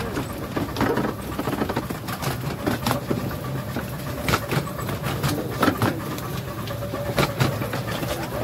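Narrow-gauge steam train running along the track, heard from its carriage: a steady rumble with irregular sharp clicks from the wheels and rail joints.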